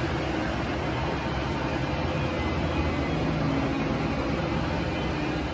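Airbus A330-300 jet engines running: a steady rush of noise with a low, even hum beneath it.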